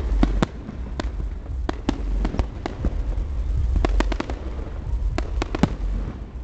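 Fireworks bursting in a rapid, irregular series of sharp cracks and pops, some clustered close together, over a constant low rumble.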